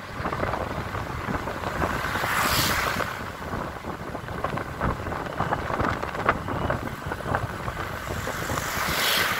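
Vehicle driving along a highway: steady road and engine noise with wind rushing over the microphone. Two louder whooshes of passing traffic come through, one about two and a half seconds in and one near the end as an oncoming box truck goes by.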